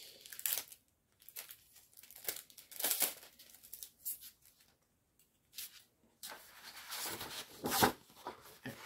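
Packaging and card handled by hand: irregular crinkling and rustling, with a longer, busier stretch of rustling near the end.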